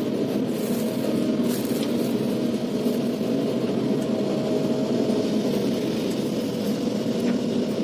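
Large crawler excavator's diesel engine running steadily under work, a constant low drone.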